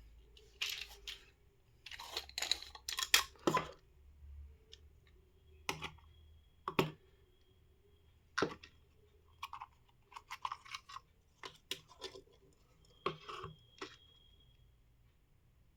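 Plastic wireless mouse being handled and opened up: irregular clicks, taps and short scrapes of plastic parts, busiest in the first few seconds, then single sharp clicks spaced a second or two apart.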